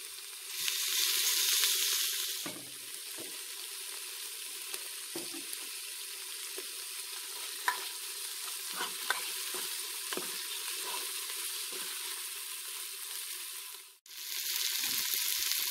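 Chopped onion, green chilli, curry leaves and freshly added tomato sizzling in hot oil in a pot, louder for the first couple of seconds, with a few faint clicks. The sizzle cuts out briefly near the end.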